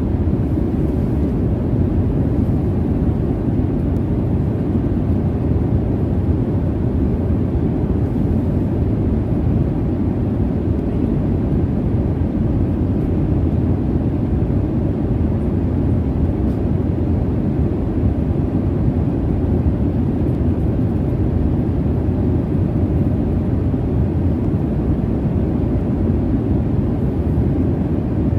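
Steady low rumble of a jet airliner's cabin in cruise: an even, deep noise of engines and airflow with no changes.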